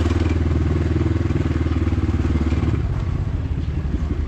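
Yamaha MT-15's single-cylinder engine running steadily while riding, its pulses easing slightly about three seconds in.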